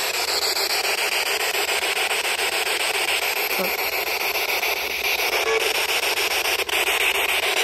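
P-SB11 spirit box sweeping through radio stations, its speaker giving out loud, steady static that flickers rapidly as the sweep chops between frequencies, with a couple of brief pitched blips.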